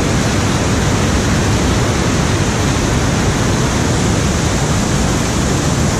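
Loud, steady rush of a waterfall on a river in high flood, tons of whitewater pouring over a rock ledge.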